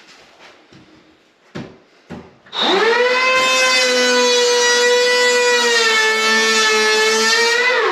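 DeWalt DCP580 20-volt cordless hand planer, after a couple of light knocks, spinning up to a loud steady high whine as it makes a pass along the door edge. The pitch sags slightly past the middle, then falls as the motor winds down near the end.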